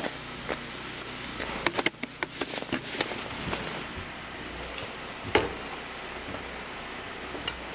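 Snow being cleared by hand from a car: short scrapes and knocks of a snow shovel and a long-handled snow brush, over a steady hiss. There is a cluster of them about two to three and a half seconds in, and the sharpest knock comes a little after five seconds.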